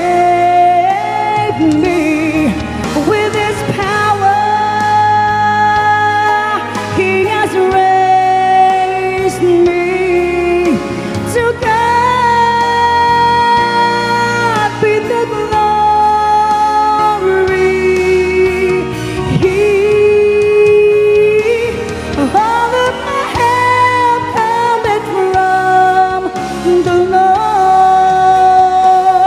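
Gospel singing with instrumental accompaniment: long held notes that slide from pitch to pitch, with vibrato and no clear words.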